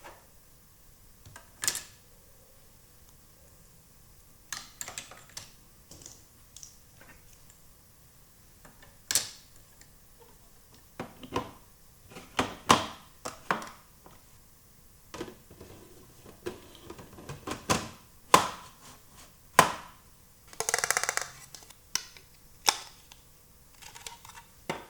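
Small plastic toy pieces being handled, giving irregular clicks, taps and knocks, with a brief rattle near the end.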